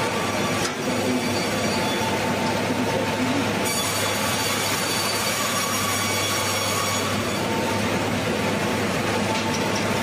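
Band sawmill running and cutting through a log on its carriage: a steady mechanical din with a thin high whine that comes in about four seconds in and drops away about three seconds later.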